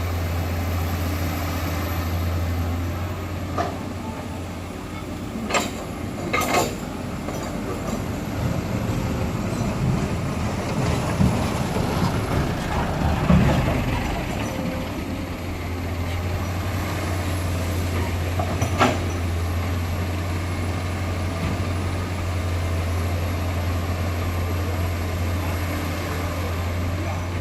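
Heavy diesel engine of an excavator running steadily at work, with a stretch of louder, rougher rumbling in the middle. Several sharp metallic clanks come through, the loudest about 6 seconds in.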